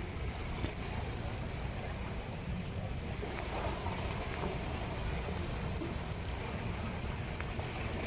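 Small sea waves lapping and washing up a sandy beach, with a swell of surf noise around the middle, over a steady low rumble of wind on the microphone.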